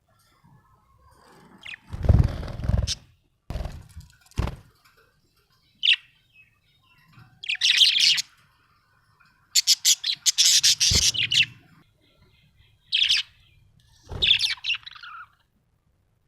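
Budgerigar chirping in short bursts of rapid, high chirps, the longest near the middle. Within the first few seconds there is a louder deep burst and two sharp knocks.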